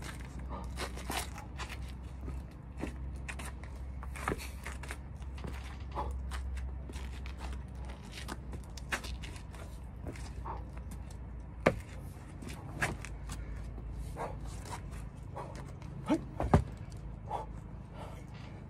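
Shoes stepping and scuffing on stone patio slabs during a kung fu staff form, with scattered short taps and a few sharp knocks, the loudest about twelve seconds in and twice near the end, over a steady low hum.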